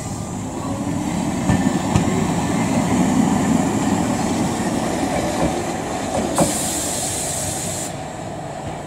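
Hankai Tramway Mo 501-type tram (car 505) running past, the low rumble of its wheels on the rails swelling to its loudest about three seconds in and then fading as it moves away, with a few sharp clacks from the wheels. A high hiss breaks in for about a second and a half near the end.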